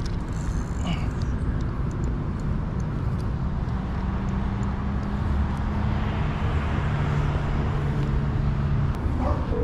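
Road traffic noise, a steady rumble, with a steady engine hum from about a third of the way in until near the end.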